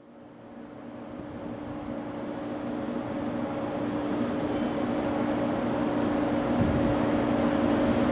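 Electric train approaching on an elevated line, its running sound growing steadily louder over a steady low hum.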